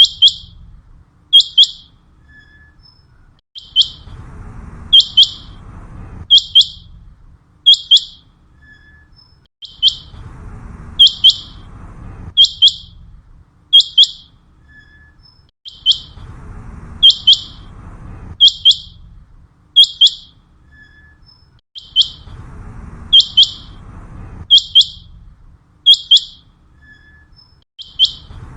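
Common quail calling its sharp, high three-note "wet-my-lips" song over and over in a regular, repeating pattern, as used for calling quail in on a hunt.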